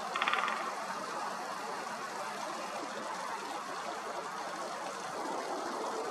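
A woodpecker drumming on a branch: one short, rapid roll of taps lasting about half a second near the start, over a steady background hiss.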